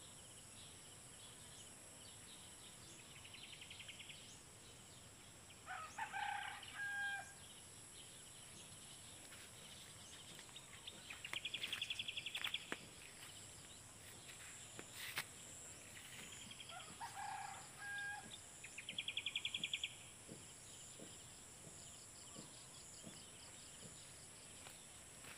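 A rooster crows twice, about eleven seconds apart. In between come short rapid buzzing trills, over a steady high insect drone.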